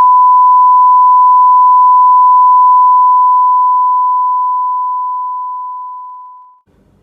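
A single loud, steady electronic beep tone, one pure pitch with no wavering, held for several seconds and then fading away, gone a little before the end.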